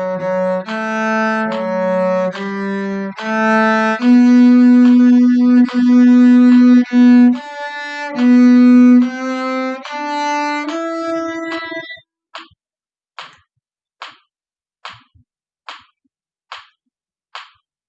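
Cello playing a slow phrase of a hymn tune in long, sustained bowed notes for about twelve seconds. Then a steady click beat, about one click every 0.8 s, like a metronome.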